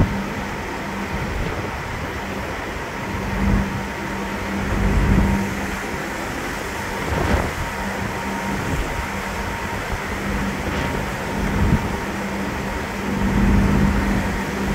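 Ferry's engines humming steadily, with a low note that drops out and returns, while gusts of a stiff breeze buffet the microphone in repeated low rumbles.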